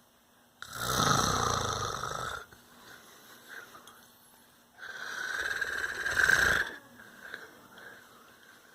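A man snoring: two long, loud snores about four seconds apart.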